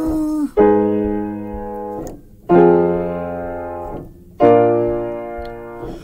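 Digital piano playing three chords about two seconds apart, each struck and left to ring and fade before the next.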